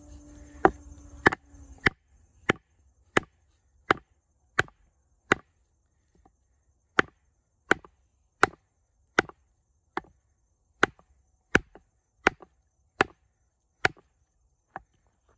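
Baton striking the spine of an L. T. Wright Forest Trail knife (A2 steel blade) to drive it through a log: a long run of sharp wooden knocks, about one and a half a second, with a brief pause about six seconds in.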